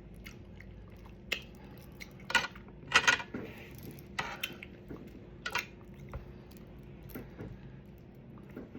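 Eating utensils clinking against dishes: a handful of short, scattered clinks, the loudest about two to three seconds in.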